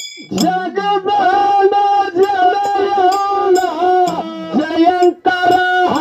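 A man singing a Kannada dollina pada folk song, holding long, slightly wavering high notes in several phrases. Short, sharp percussion strikes fall in the breaks between phrases.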